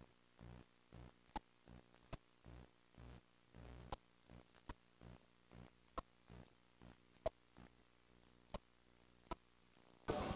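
Near silence from a gap in old VHS tape audio, broken by about nine scattered sharp clicks and faint low thumps.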